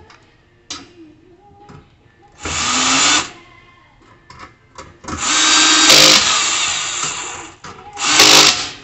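Power drill running in three bursts, a short one about two and a half seconds in, a longer one of nearly three seconds from about five seconds in, and a short one near the end, driving screws to fasten the grill's panels together. Small clicks and knocks of parts come between the bursts.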